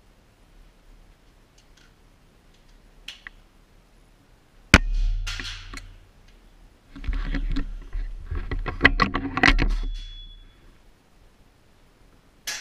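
A single sharp air-rifle shot about five seconds in, followed a couple of seconds later by a few seconds of clicking and rattling as the rifle is handled.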